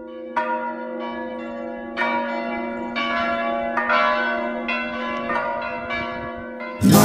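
Church bells ringing, struck over and over at an uneven pace, each stroke ringing on under the next. Loud band music cuts in abruptly just before the end.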